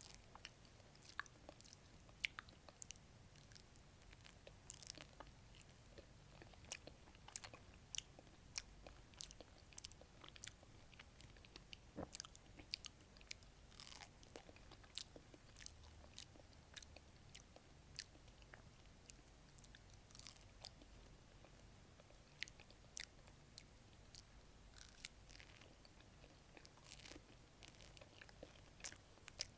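Someone biting into and chewing a peach: irregular wet mouth clicks and smacks, several a second, with an occasional crunchy bite.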